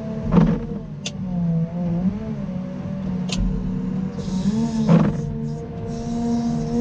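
Caterpillar 926M wheel loader's diesel engine running steadily while plowing snow, its pitch wavering slightly up and down. Two sharp knocks, one about half a second in and one about five seconds in.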